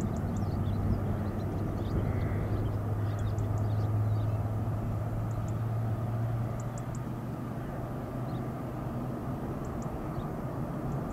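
Distant piston aero engines of a formation of Spitfires and Hurricanes: a steady low drone that drops in level about six and a half seconds in.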